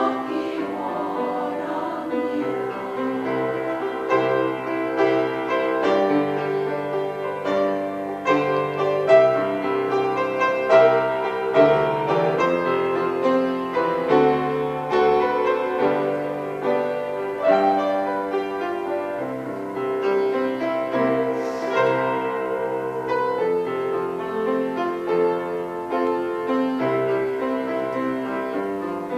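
Piano playing a worship-song melody with full chords as an instrumental interlude; a choir's held note fades out right at the start.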